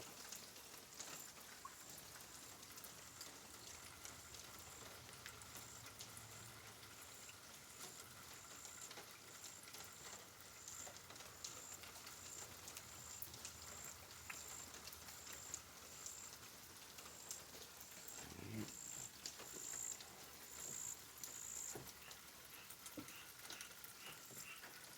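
Faint frog chorus after heavy rain: a steady high call with a pulsing high trill over it and scattered small clicks.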